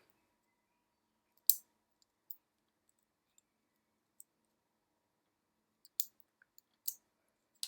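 About six short, light clicks and taps, spread out with near silence between them, the first, about a second and a half in, the loudest: small parts of a disassembled Korg Triton Extreme joystick being handled and set down.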